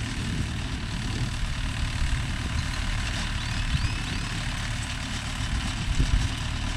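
Mahindra Yuvo Tech Plus 585 4WD tractor engine running steadily while powering a Bharat baler that is forming bales. A few faint high chirps come about three seconds in.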